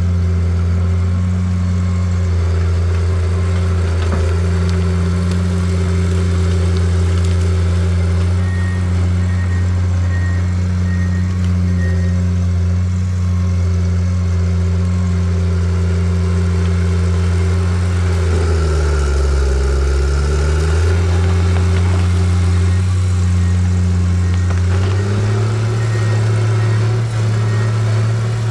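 Heavy-equipment diesel engine running steadily under work. About two-thirds of the way through, its pitch sags for a couple of seconds as it lugs under load, then recovers. Near the end it speeds up to a higher steady pitch. Faint runs of short high beeps come through twice.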